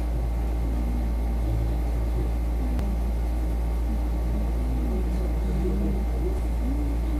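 A steady low hum throughout, with faint voices talking in the background.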